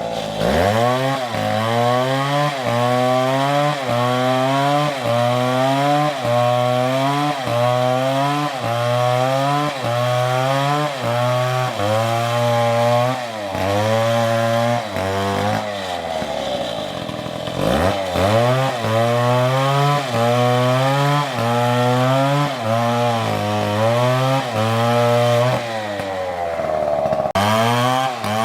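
Stihl two-stroke chainsaw cutting into a tree at high revs. Its pitch dips and recovers about once a second as the saw works under load. About 16 seconds in the engine falls off briefly, then revs back up and carries on cutting.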